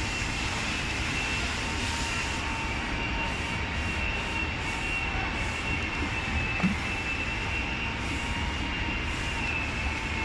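Steady workshop machinery noise with a thin high whine, over which a dry cloth is rubbed in quick repeated strokes across the glossy rim of a bathtub, wiping off polishing oil.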